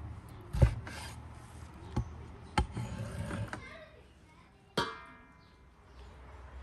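Cleaver cutting lamb liver on a wooden cutting board: a few sharp knocks of the blade on the board, the loudest about half a second in. Near the end comes one sharp clink with a short ring, the metal blade against the enamel basin.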